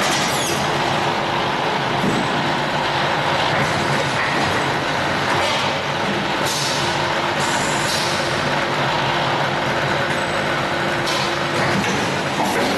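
Rotor aluminium die-casting machine working through its cycle: a steady mechanical hum with several short hisses of compressed air as its pneumatic cylinders and gripper arm move.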